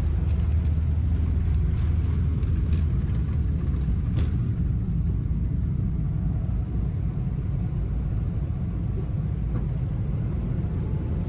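Steady low rumble of an airliner cabin, the drone of the aircraft's engines and air system, with a couple of faint clicks about three and four seconds in.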